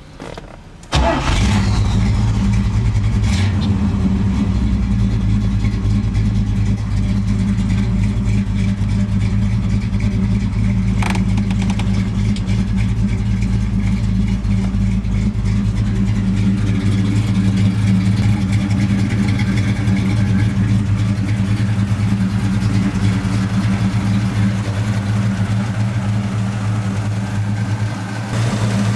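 1979 Camaro Z/28's rebuilt 350 V8 with a mild cam starts about a second in, then runs at a steady idle.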